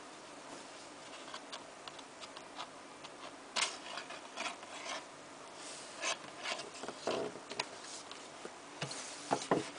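Cardboard DVD sleeves and a paper episode insert being handled and flipped: scattered rubbing, rustling and light taps, loudest about three and a half seconds in and again near the end.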